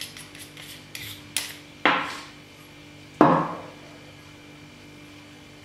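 Aluminium flashlight body being unscrewed and handled: a few light clicks, then two sharper metallic knocks with a brief ring, about two and three seconds in, the second the louder.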